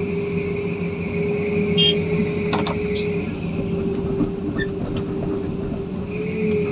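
Heavy vehicle engine running steadily, with a few short knocks about two to three seconds in.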